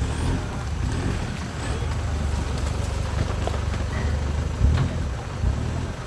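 Off-road 4x4 vehicle engine running at low revs, a steady low rumble with a couple of brief surges near the end.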